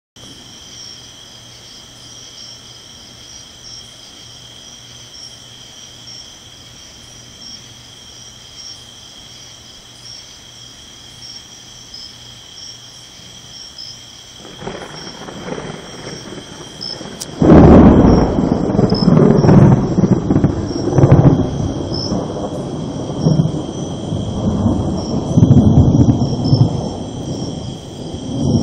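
Insects chirping steadily at night, then thunder from a nearby lightning strike. A rumble builds about fifteen seconds in, breaks into a sudden loud thunderclap a couple of seconds later, and rolls on in heavy rumbles with several peaks.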